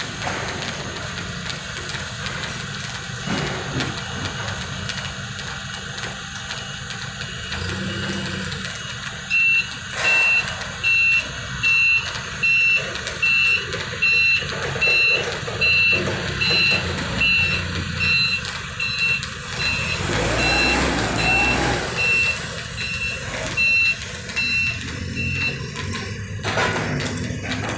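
Forklift engine running, with its reversing alarm beeping evenly, about one and a half beeps a second, from about a third of the way in until near the end.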